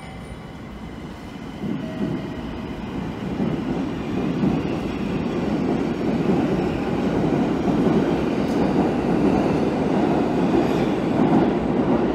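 Tokyo Metro Ginza Line subway train pulling out of the platform. Its running noise swells about a second and a half in and stays loud as the cars pass.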